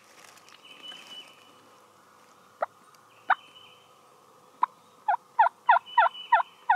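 Turkey yelps: three spaced single yelps, then a quicker run of about six, each a short, sharp note falling in pitch.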